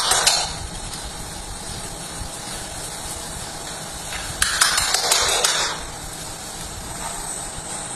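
Steady hiss, with two louder rushes of noise: one at the very start and one lasting about a second and a half around the middle.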